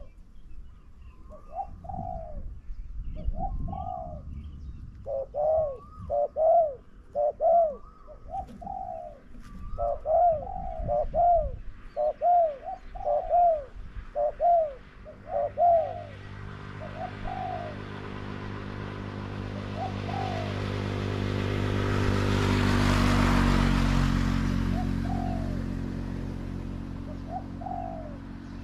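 Spotted dove, a newly trained decoy, cooing in a run of short arched notes, packed close together for several seconds and then thinning out. Midway a vehicle passes, swelling to its loudest in the second half and then fading.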